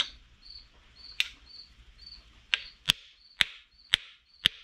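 About seven sharp knocks of a blue-handled tool striking a small engine's carburetor and intake elbow, the blows coming quicker in the second half, to break a long-stuck gasket joint loose.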